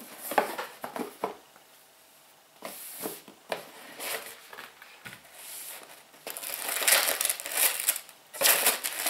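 A cardboard subscription box being opened by hand, with clicks and scrapes of the lid and packaging, then bursts of rustling and crinkling that are loudest in the last three seconds.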